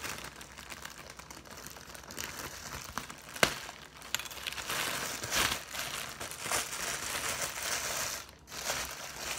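Plastic bread bag crinkling as it is handled, with one sharp click about three and a half seconds in.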